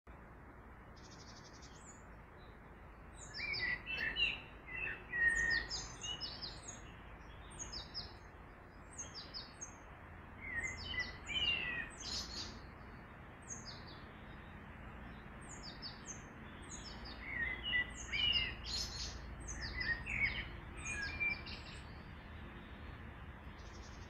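Several songbirds chirping and singing, short high chirps and trills coming in three busier stretches with scattered calls between, over a steady low background rumble.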